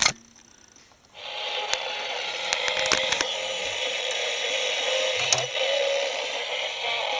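Homebuilt shortwave AM/SSB receiver's loudspeaker reproducing a strong local FM broadcast station that breaks through by slope detection, heard as steady, distorted, hissy audio. It comes in abruptly about a second in, after a click and a moment of near silence.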